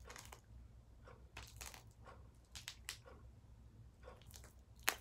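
Faint, irregular sticky crackles and clicks of gum-and-shaving-cream slime being pulled and peeled off hands.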